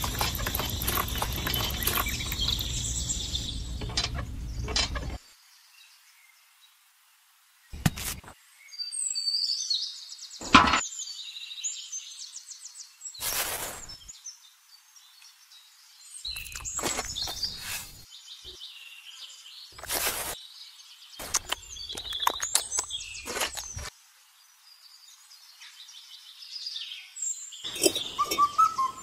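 A miniature cement mixer's small electric motor runs for about five seconds and then stops. After it come scattered knocks and clinks of small objects being handled, with birds chirping in the background.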